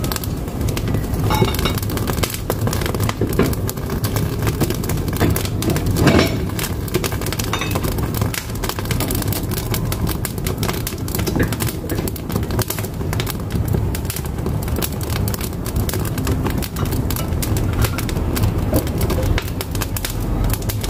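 Firewood burning in a wood-burning cookstove, crackling and popping with many sharp snaps over a steady low rumble.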